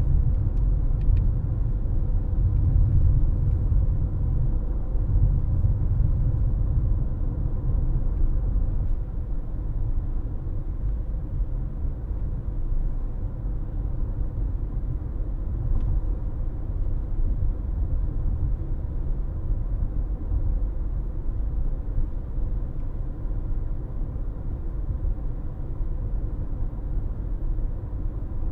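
Car driving along, a steady low rumble of road and engine noise that eases slightly after the first several seconds, with a few faint clicks.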